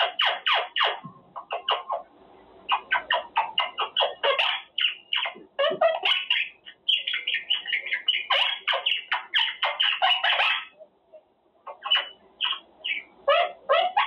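A Quaker parrot (monk parakeet) chattering in rapid runs of short, harsh squawks, several a second, broken by two brief pauses.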